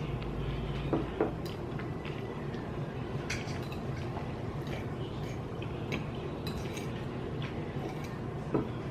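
Fork clinking and scraping on a plate while eating: a few scattered short clicks over a steady low hum.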